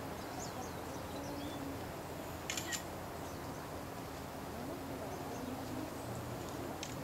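Outdoor ambience: a steady hiss with faint, high bird chirps, and a short burst of clicks about two and a half seconds in, with another click near the end.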